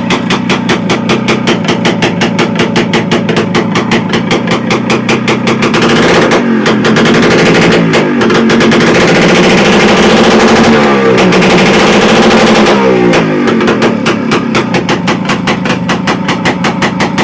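DKW RT 250 H's single-cylinder two-stroke engine idling with an even, popping beat. About a third of the way in it is revved up and held at higher revs with a brief dip, then let back down to the popping idle.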